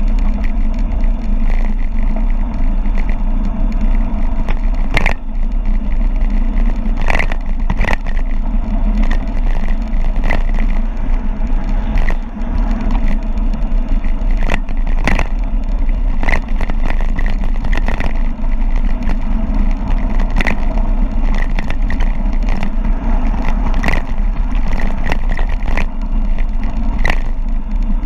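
Wind buffeting the microphone at speed on a mountain bike descent, with the bike rattling over a rough gravel road in irregular sharp knocks.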